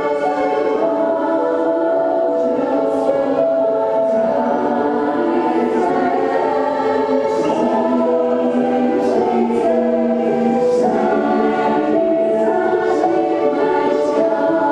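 Women's choir singing in several-part harmony, holding long sustained notes that shift together into new chords every second or two.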